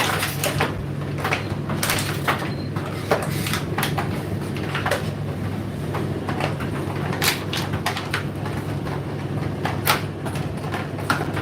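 Indesit IDC8T3 condenser tumble dryer running: a steady low motor hum, with frequent irregular clicks and knocks throughout.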